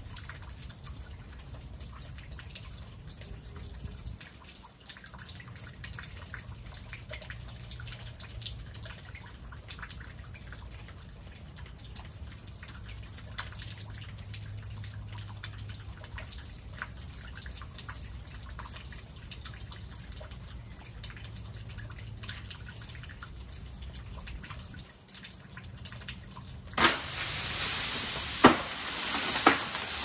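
Meltwater dripping steadily from icicles and an ice-coated roof eave. Near the end a sudden loud crack sounds, then a loud crashing hiss with a few sharp snaps: an ice-laden tree limb breaking under the weight of ice and falling.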